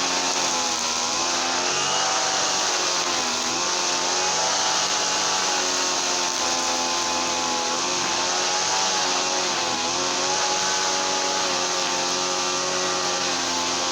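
Small gasoline engine of a garden machine running steadily at speed, its pitch wavering slightly up and down.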